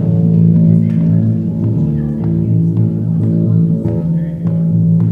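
Band instruments played through a PA, holding sustained low chords that change a couple of times, with a few faint picked or struck notes on top.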